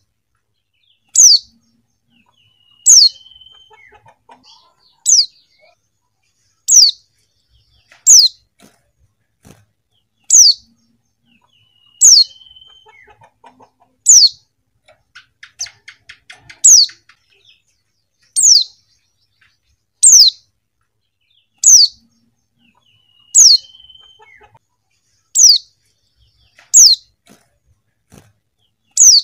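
Female white-eye (pleci) calling: a thin, high note that falls steeply in pitch, repeated steadily about every one and a half to two seconds, with faint soft twittering between the calls.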